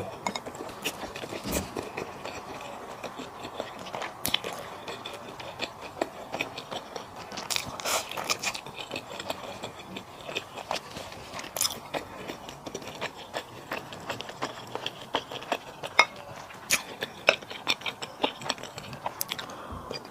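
Close-miked chewing and eating mouth sounds, with frequent irregular smacks and clicks.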